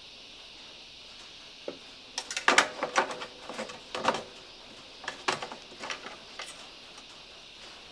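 Plastic-capped dipstick being pushed down into a Briggs and Stratton mower engine's oil filler tube, seated and drawn back out: a run of clicks, knocks and short scrapes starting about two seconds in, over a steady faint hiss.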